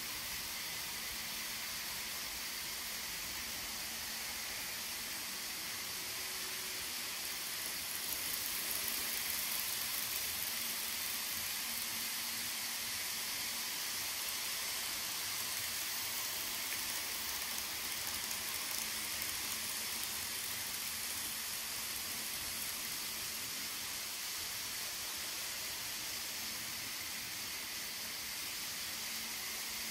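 N scale model trains running on a layout: a steady hiss with a faint low hum, swelling a little about eight seconds in as a train passes close by.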